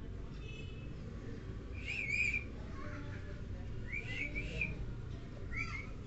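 Pet parakeet giving short, high whistled calls, three times a couple of seconds apart.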